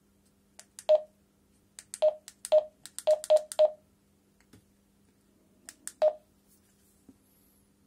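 TYT handheld two-way radio's buttons being pressed, each press a short click with a brief beep: about seven presses, with a quick run of three around three seconds in and a last one near six seconds. A faint steady low hum runs underneath.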